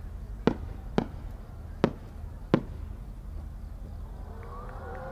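Four sharp pops, each a second or less apart, from the small side-bursts on the rising tail of a Japanese aerial firework shell as it climbs, over a steady low rumble.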